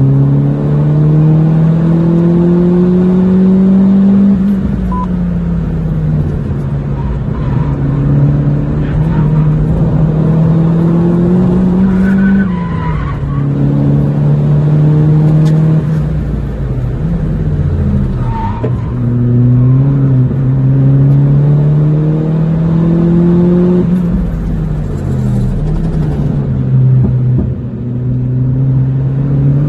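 Mitsubishi Colt Ralliart Version R's turbocharged 1.5-litre 4G15T four-cylinder, with a turbo-back exhaust, heard from inside the cabin while it is driven hard on track. The engine pitch climbs for a few seconds at a time and then drops, over and over, as the driver accelerates through the gears and comes off the throttle for corners.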